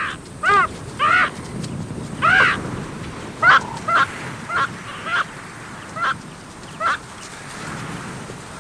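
A series of about nine short, honk-like animal calls, one every half second to a second, which die away about seven seconds in.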